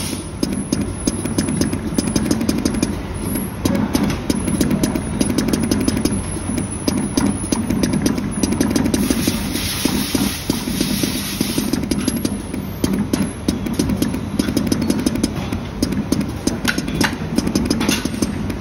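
Multi-colour PVC dispensing machine running as its needle head moves over the mould: a steady mechanical hum with dense, irregular clicking.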